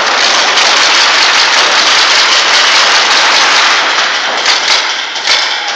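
Many paintball markers firing rapidly at once, a dense continuous clatter of shots that thins into separate shots about four seconds in.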